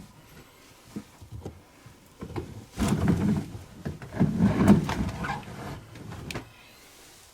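Freshly spun laundry being pulled out of a front-loading washing machine's drum: fabric rustling and dragging against the drum in two main bursts, about three seconds in and again around four to five seconds in, with a few light knocks before and a click as it ends.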